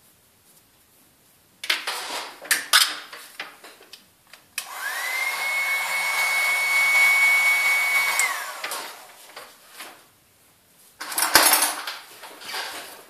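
A small electric motor runs for about four seconds; its whine rises as it spins up and falls as it runs down. It comes between two spells of clattering and rustling handling noise.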